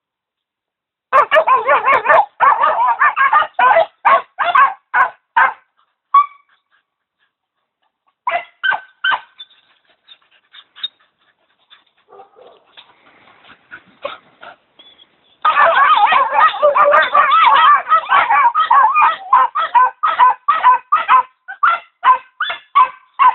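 Bosnian coarse-haired hound pups barking at a wild boar in quick yapping runs, the baying of young boar hounds. A dense run of barking comes in the first few seconds, then scattered barks, then a long run of rapid barking from about two-thirds of the way through.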